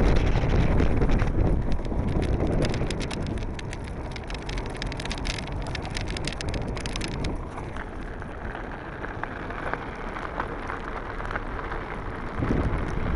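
Wind buffeting the microphone with a low rumble while riding a Blokart land yacht across a dry lakebed, with a spell of rapid crackling clicks from about one to seven seconds in. It grows louder again near the end.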